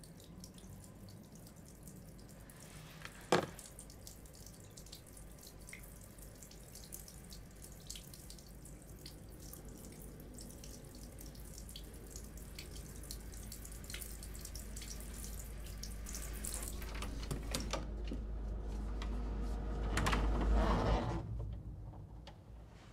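Water running steadily with a rushing hiss, as from a tap or shower. There is one sharp click about three seconds in, and the rushing grows louder toward the end before falling away.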